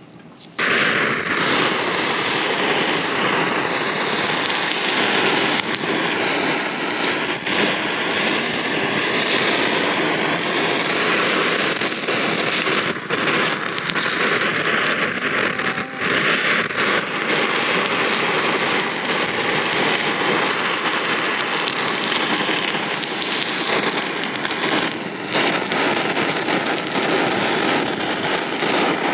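Handheld butane blowtorch on a gas canister, its flame running steadily as it sears pieces of mackerel on a griddle plate, with the fish sizzling under it. The sound starts abruptly about half a second in.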